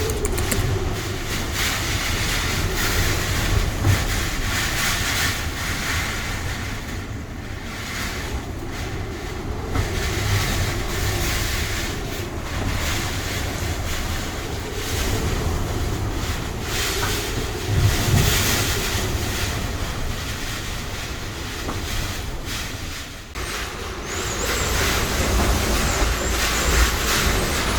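Typhoon wind gusting hard, rumbling and buffeting on the microphone in rising and falling surges, with a brief lull about two-thirds of the way through.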